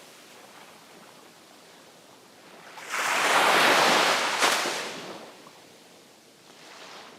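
Sea wave breaking on the shore: a lull of faint surf hiss, then about three seconds in a wave crashes in with a sudden rush, a sharp crack near its peak, and fades away over the next two seconds.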